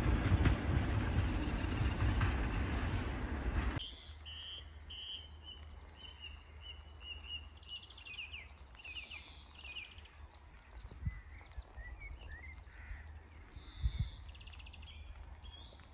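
A diesel train running past at close range, which cuts off abruptly about four seconds in. After the cut, birds sing over a low wind rumble.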